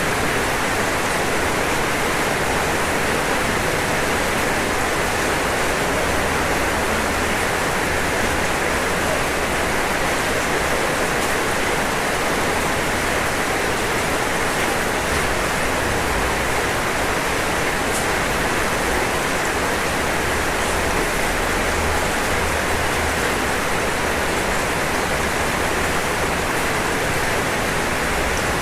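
Steady rain falling on a roof: an even hiss with a few faint drop ticks now and then.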